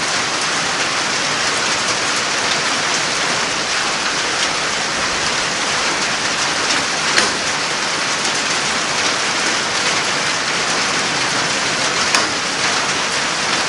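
Steady hiss of rain, with two sharp taps about halfway through and near the end.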